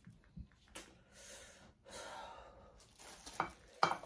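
A person's breathing: two long, hissy breaths, then a few sharp clicks near the end.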